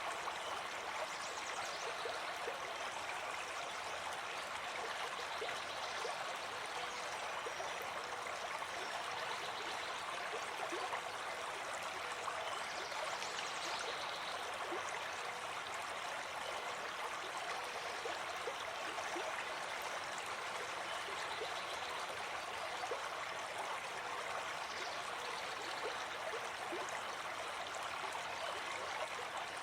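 Running water, steady and continuous, with small splashes and trickles throughout.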